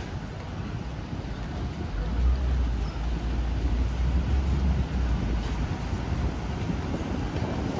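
Street traffic noise with a low rumble that swells about two seconds in and eases about three seconds later.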